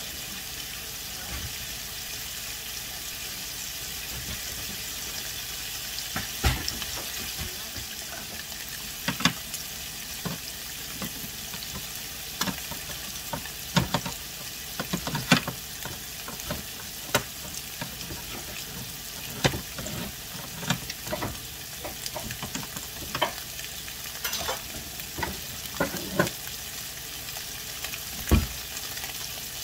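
Tofu chunks frying slowly in a nonstick pan: a steady sizzle as the tofu gives off its water, with frequent irregular sharp clicks and knocks from about six seconds in.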